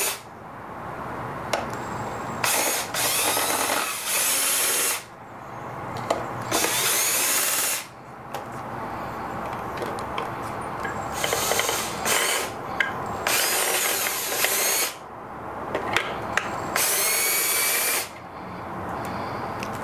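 Cordless drill-driver backing out Phillips screws, its motor running in about seven short bursts of one to two seconds, each starting with a rising whine, with brief pauses between them.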